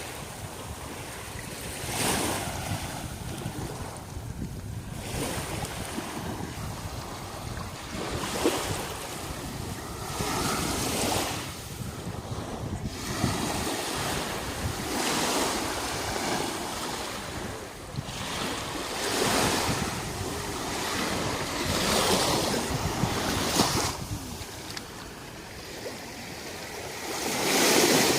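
Sea waves breaking and washing up a beach, swelling every few seconds, with wind rumbling on the microphone.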